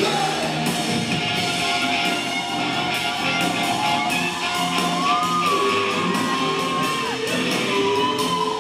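Live rock band playing in a large hall, with a long held high note a little past halfway that slides up into it and falls away. Audience shouts and whoops come through the music.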